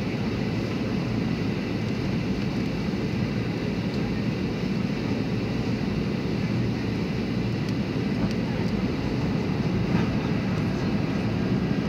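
Steady cabin noise of a jet airliner descending on approach to land: engine and airflow noise heard from inside the cabin as an even, low drone.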